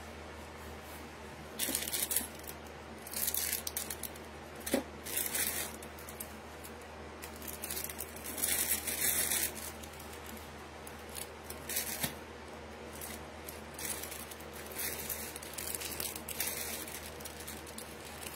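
Irregular bursts of rustling and crinkling, like packaging being rummaged through and handled, over a faint steady low hum.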